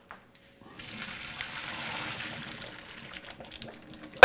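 Hot pasta water with orzo pouring from a stainless steel saucepan through a fine-mesh strainer into a sink, a steady splashing rush that starts about a second in. Near the end there is a single loud metallic clank that rings briefly.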